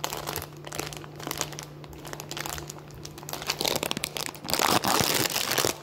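Plastic fruit-snack wrapper crinkling in the hand. The crinkling grows louder and denser a little past halfway as the pouch is torn open.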